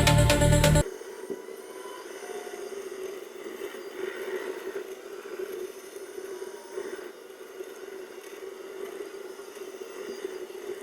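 Electronic music cuts off about a second in, then a bulldozer's diesel engine runs with a steady drone.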